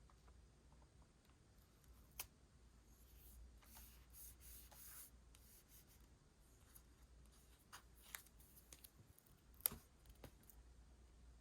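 Quiet handling of paper and stationery: a couple of seconds of soft paper rustling and rubbing, with a few sharp clicks or taps scattered through, the loudest near the end.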